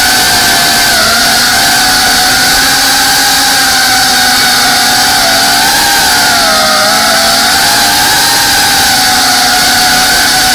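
FPV quadcopter's electric motors and propellers whining steadily, recorded by the onboard action camera. The pitch dips briefly as the throttle eases about a second in and again around six to seven seconds, then recovers.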